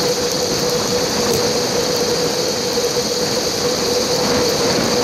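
Wind and ride noise on a GoPro camera's microphone while cycling on a dirt road: a steady rush with a constant mid-pitched hum and high hiss.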